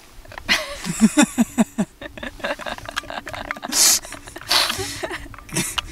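A woman laughing in a quick run of short pitched bursts, then breathy laughs, with small clicks and knocks from handling a plastic water bottle.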